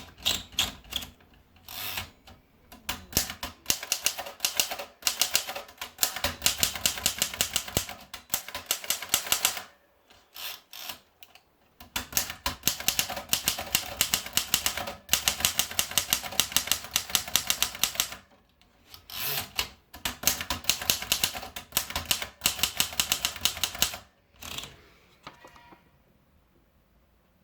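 Remington Junior manual typewriter being typed on: several runs of fast key strikes broken by short pauses, ending with a few single strikes.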